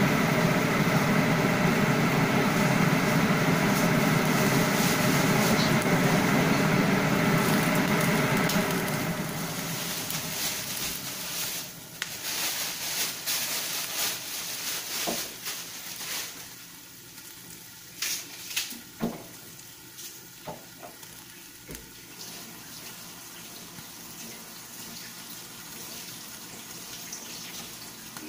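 Ka-bāng (croaker) sizzling and bubbling in oil and sauce in a covered frying pan, at the lidded simmering stage. A loud steady hum over it stops about nine seconds in; after that the pan crackles with scattered sharp pops, then settles to a soft sizzle.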